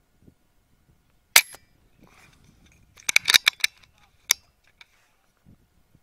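Rapid Air Weapons HM1000X .30-calibre PCP air rifle firing once about a second and a half in, a sharp report. A quick run of sharp clicks follows around three seconds in, with one more near four and a half seconds.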